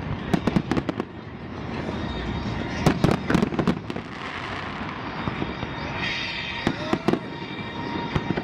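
Fireworks going off: volleys of sharp bangs and crackles, thickest in the first second, around three seconds in and again around seven seconds in, over a continuous hiss and rumble.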